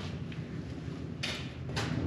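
Metal parts being handled: a few sharp clanks and scrapes over a steady low hum.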